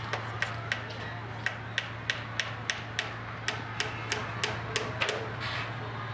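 A run of sharp knocks, evenly spaced at about three a second, with two brief breaks, stopping near the end.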